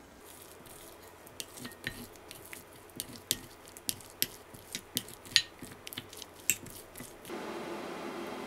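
A metal fork and spoon scraping and clicking against a ceramic bowl while they work soft mentaiko roe, with sharp irregular taps and a soft wet squish. About seven seconds in, this gives way to a steady low hum with hiss.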